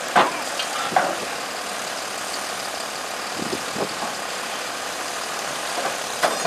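A heavy machine's engine running steadily at idle, with a few brief sharp sounds: two loud ones in the first second, two more near the middle and one near the end.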